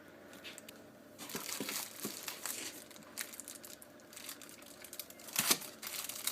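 Packaging crinkling and rustling in bursts as it is handled and pulled open, loudest about five and a half seconds in.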